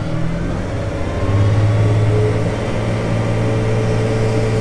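Case IH 7240's six-cylinder diesel engine, heard from inside the cab, speeding up as the hand throttle is pushed forward, then holding at the higher speed from a little over a second in.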